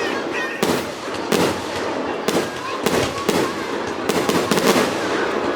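Aerial fireworks bursting in quick succession, a string of sharp bangs about one or two a second, each with a short echoing tail.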